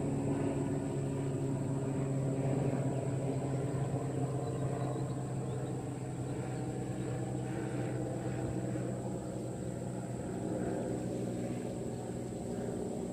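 An engine running steadily with a low hum, easing off a little in the second half.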